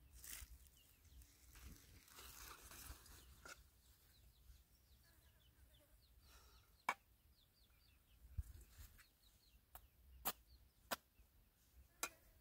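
Faint clinks of a spoon against a metal pot and dishes, with sharp single clicks spaced apart in the second half, over faint bird chirps.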